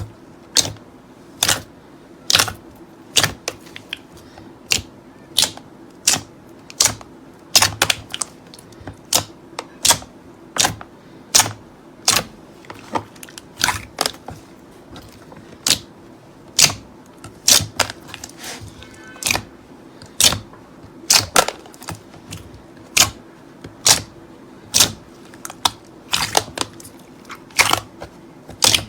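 Slime being pressed and worked by hand, giving sharp clicking pops about one to two a second at an uneven pace.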